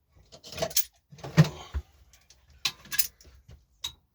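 Metal hand tools clinking and knocking against a motorcycle rear shock absorber clamped in a vise, as a spanner and grips are worked on its stiff top nut and shaft. Several short, separate knocks and clinks, the loudest about a second and a half in, with a sharp click near the end.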